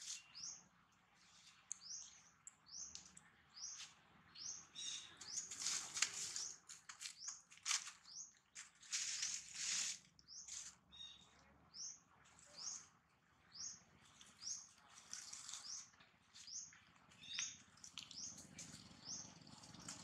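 A small bird chirping over and over in the background: short, high, upward-flicking notes, about one or two a second. A few louder, rough, hissy bursts come in among them, the loudest about six seconds in and again around nine to ten seconds.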